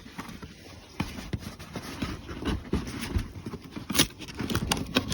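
Packaging being handled as an item is worked out of its box: irregular rustles, scrapes and small knocks, with a sharper knock about four seconds in.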